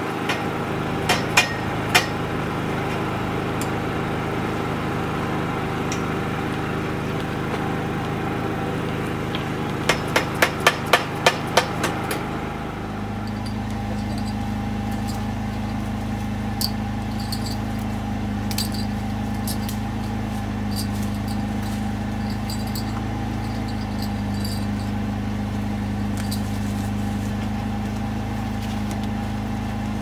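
Hammer striking the canopy's metal frame pole: a few single blows near the start, then a quick run of about seven blows about ten seconds in. A steady hum runs underneath.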